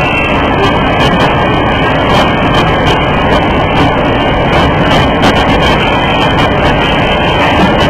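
Porcelain-cup finishing machine running: a loud, steady mechanical din with frequent irregular sharp clicks.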